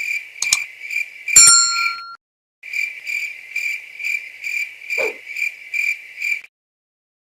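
Cricket chirps, evenly about two a second, with a bright bell-like ding about a second and a half in. The chirping cuts off abruptly for a moment around two seconds in, resumes, then stops dead near the end.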